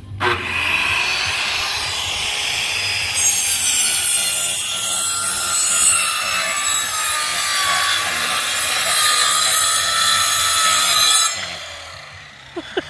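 Handheld electric circular saw starting up and running, then cutting along a wooden plank from about three seconds in. The saw is switched off near the end and winds down.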